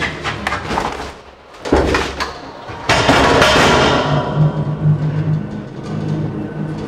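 Thuds and rattling from an electric pallet truck working on a trailer floor, with a hard knock about two seconds in and a loud rattle a second later, over background music.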